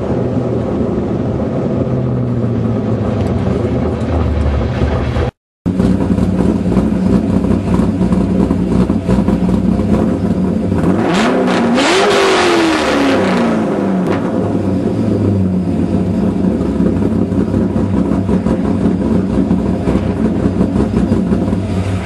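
Car engine through a B&B Bullet aftermarket exhaust, running steadily while driving; about halfway through it revs up and the pitch falls back over a couple of seconds. The sound breaks off for a moment about five seconds in.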